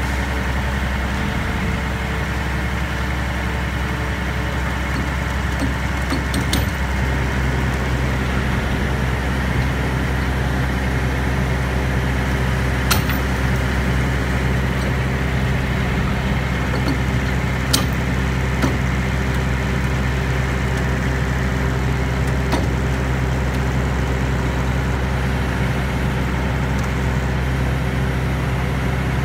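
Heavy tow truck's diesel engine running steadily during a winch recovery, its note shifting about seven seconds in. A few sharp clicks sound now and then.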